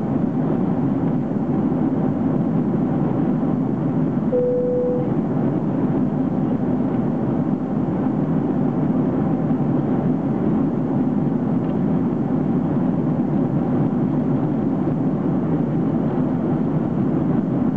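Steady cabin noise of a Boeing 767-300 airliner in flight, heard from a window seat over the wing: an even roar of airflow and engines. A brief single tone sounds about four seconds in.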